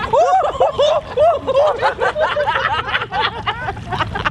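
People laughing and giggling in a quick run of short, rising-and-falling voiced bursts.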